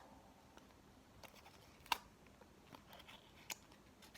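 Faint handling noises of a small toy's packaging: a few soft, scattered clicks, the sharpest about two seconds in.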